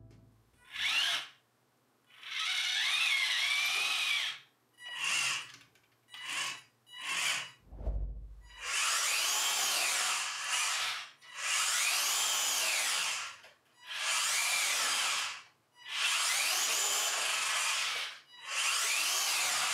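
Small RC tank's electric drive motors and gearbox whining in repeated bursts as it drives, each burst rising and falling in pitch, with a short low thump about eight seconds in.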